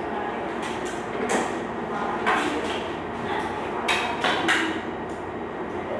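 Steady room noise with about five short, sharp clicks and knocks of small objects being handled, several of them close together in the second half.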